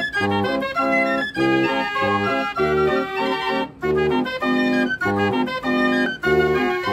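Organ music: short chords that change every fraction of a second in a steady rhythm.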